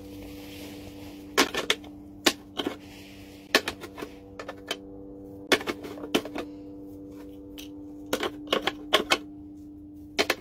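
Sharp plastic clicks and taps in short clusters every second or two: a corvid's beak handling plastic shapes against a plastic shape-sorter toy as it pushes them into the holes. A steady low hum runs underneath.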